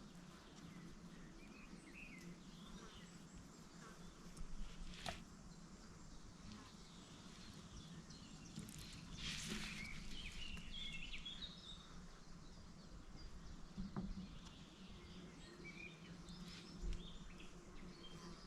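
Faint birds chirping over a low steady hum, with two sharp clicks and a brief rustle about halfway through.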